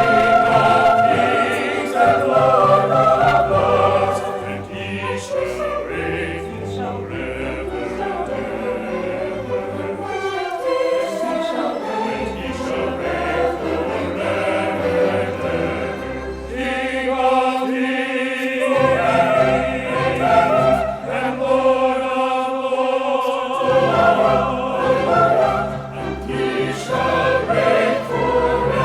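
High school choir singing a holiday number with low sustained accompaniment underneath.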